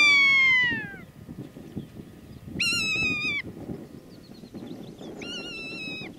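Rough-legged buzzard calling three times. Each call is a drawn-out mewing cry that drops in pitch at its end, and the first is the loudest.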